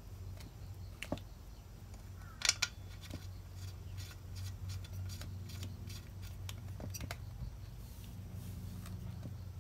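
Small clicks and snaps of a Shindaiwa chainsaw's rubber spark plug cap being worked on and off the spark plug, with a sharp double click about two and a half seconds in and a run of quicker clicks after it. A steady low hum runs underneath.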